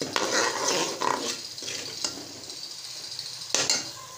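Steel spoon stirring and scraping a thick masala paste frying in oil in an aluminium pot, with a sizzle underneath, as the spices are roasted in the oil. The strokes come thick in the first second and a half, ease off, and come once more near the end.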